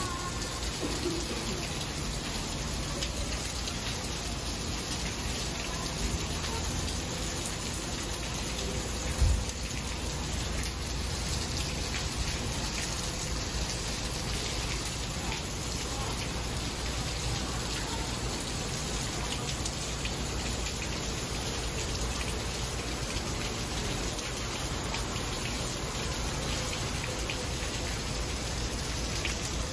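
Heavy rain pouring steadily onto a flooded parking lot and parked cars, an unbroken hiss of falling water. A single low thump comes about nine seconds in.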